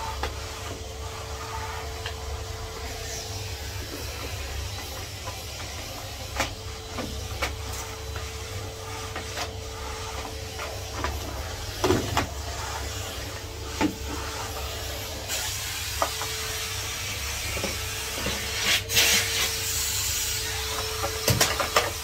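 Numatic Henry HVR200 620 W vacuum cleaner running steadily, a constant motor noise with a steady tone, while vacuuming. Occasional knocks and clicks from the wand and floor tool being moved about.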